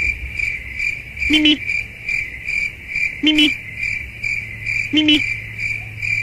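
Cricket chirping, a steady run of pulsed chirps about three to four a second, likely a dubbed-in 'crickets' sound effect. A short, low pitched call breaks in three times, about two seconds apart.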